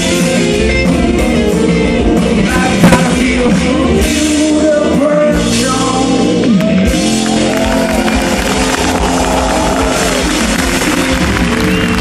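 Live rock band playing, with a man singing over electric guitar, upright bass and drums, heard loud from the audience.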